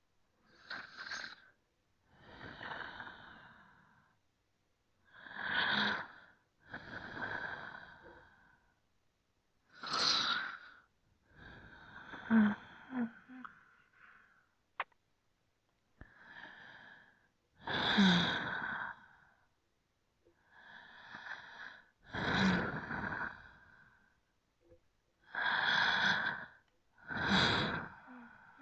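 Slow, deep human breathing: a steady run of airy inhales and exhales, about one breath every two to three seconds, each lasting a second or two, with short silent gaps between them. A single sharp click falls near the middle.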